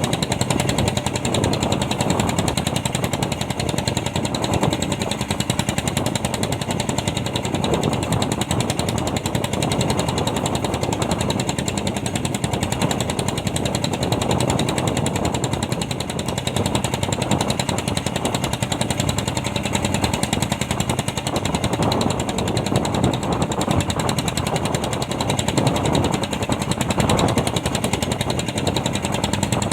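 Fishing boat's engine running steadily at close range, with a rapid, even pulsing beat.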